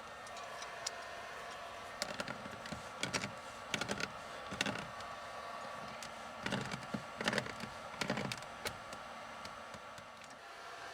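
Clusters of light clicks and knocks, a few quick ones at a time, over a steady hum.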